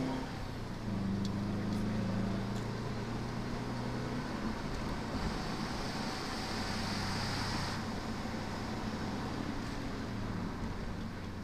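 Subaru Impreza WRX STi's turbocharged flat-four engine running under way, heard from inside the cabin over road and tyre noise. The steady engine note fades back about four seconds in, leaving mostly road noise.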